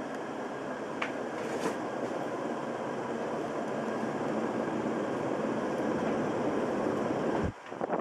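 1999 Casablanca Veranda ceiling fan running: a steady whirring rumble from the motor and blades, its bearings in poor shape. The sound drops off abruptly near the end, followed by a few clicks.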